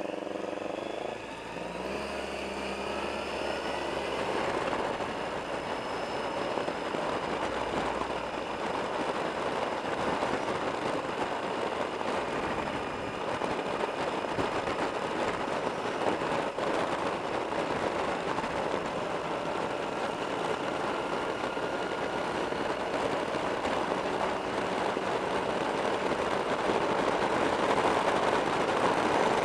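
Wind rushing over the microphone with a motorcycle engine running underneath at road speed. The engine's pitch rises over the first few seconds as the bike accelerates away.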